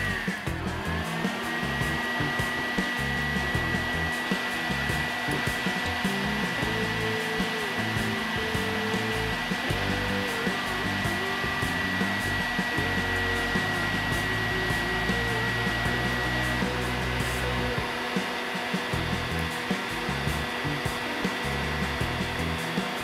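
Large construction heat gun blowing hot air steadily.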